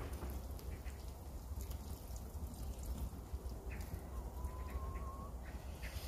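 Metal tongs clicking lightly against a cast-iron cauldron as blanched green onions are lifted out of steaming broth, over a low steady rumble. A faint thin tone, rising slightly, comes in about four seconds in and lasts about a second.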